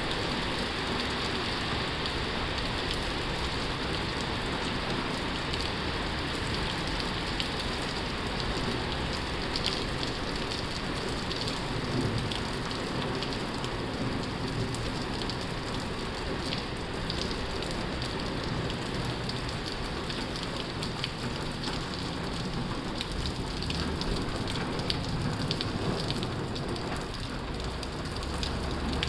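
Heavy rain on a tin roof: a steady, dense hiss with many small drop ticks.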